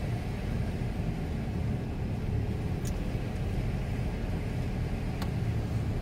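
Steady low rumble of a 1998 Dodge Ram 2500 pickup on the move, engine and road noise heard from inside the cab. Two faint ticks come about three and five seconds in.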